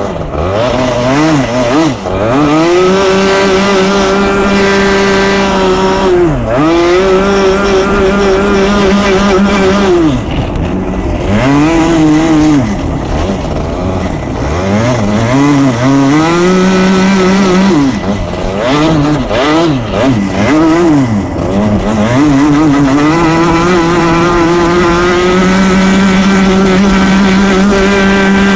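125cc two-stroke kart engine at racing speed, heard close up: the revs climb and hold high on the straights, then drop sharply and pick up again out of the corners, about six times, with a quick run of several dips in a row near the middle of the run.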